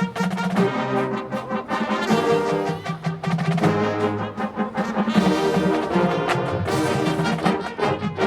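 Marching band playing: a brass section of trombones and trumpets holding full chords, with drum strokes marking the beat.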